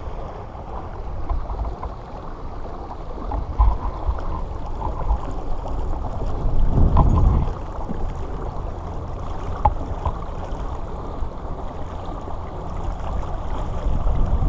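Water swishing along the hull of a pedal-driven kayak under way, over a steady low rumble, with a louder surge about seven seconds in.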